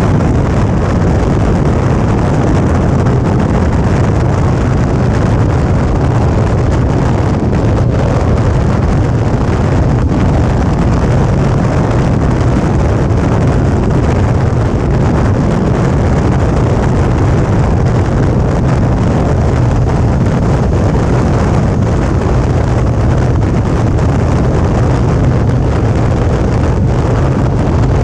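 Suzuki V-Strom 650's 645 cc V-twin engine running at a steady cruise, with loud wind rushing over the camera microphone. Engine note and wind hold steady throughout.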